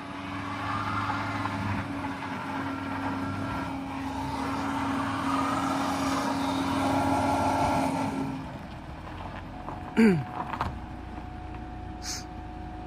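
Car engine running hard and steady under load on a steep dirt climb, with a noisy hiss above it, then easing off after about eight seconds. About ten seconds in there is a brief loud sound falling in pitch.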